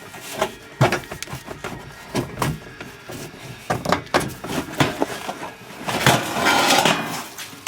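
Irregular knocks and clatter of hands and tools at work, with a short noisy burst lasting about a second near the end.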